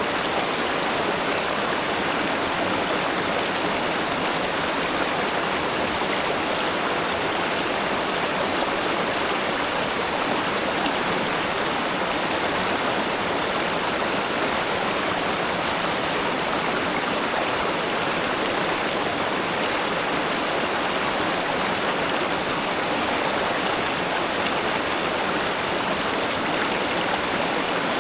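Steady rushing of a flowing river or spring-fed stream, an even unbroken wash of water noise.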